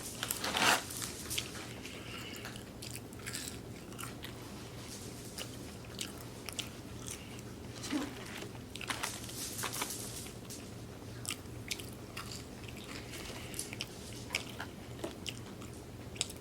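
A person eating a gyro and French fries close to the microphone: bites and chewing with small crunches, the loudest bite about half a second in.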